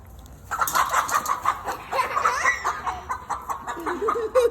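A chicken squawking and clucking loudly in rapid, repeated cries starting about half a second in, the alarm calls of a bird being chased or caught.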